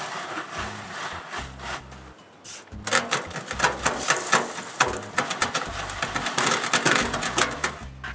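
Sand being sifted through a metal window screen: a lighter gritty hiss, then from about three seconds in a dense run of fast scratching and rattling of grains on the mesh.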